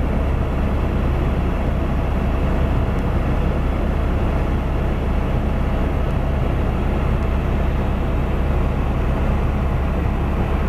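Helicopter in flight, heard from inside the cabin: a constant deep rumble of rotor and engine that holds steady throughout.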